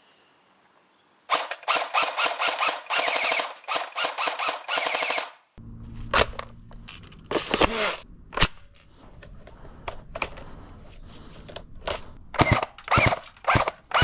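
Airsoft AUG-style DMR rifle firing: rapid full-auto bursts for about four seconds, then, after a short pause, single shots and a quicker string of shots near the end.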